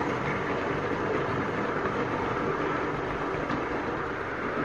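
OO gauge model train running along the track: a steady rolling and running noise from the wheels and mechanism.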